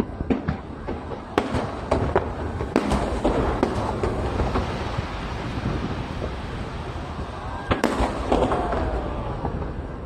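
Aerial fireworks bursting: a run of sharp bangs with crackling between them, thickest in the first four seconds and again about eight seconds in.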